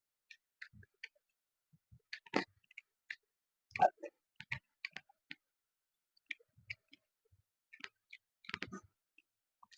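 Close-miked mouth sounds of someone eating: irregular wet clicks and smacks of chewing, with short gaps between them.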